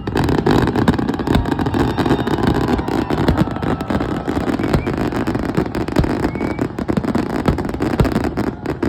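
Dense fireworks barrage: a rapid run of sharp pops and crackles over a continuous rumble.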